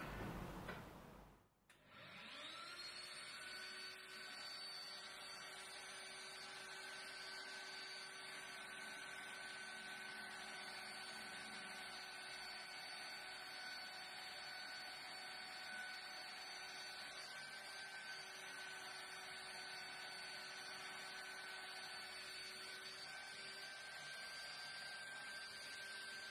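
Benchtop drill press motor starting up about two seconds in, its whine rising in pitch as it comes up to speed, then running steadily.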